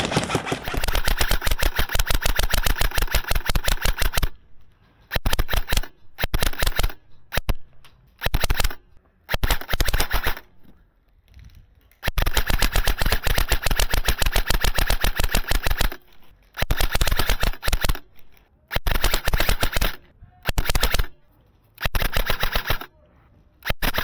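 Airsoft rifle firing on full auto: two long bursts of about four seconds each, with many shorter bursts between and after them.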